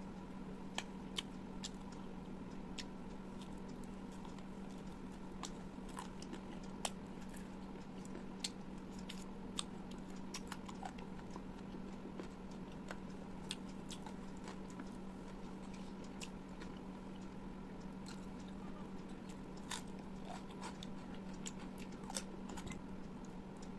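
Close-miked eating: a person chewing and biting food, with many irregular sharp wet mouth clicks and smacks. A steady low hum runs underneath.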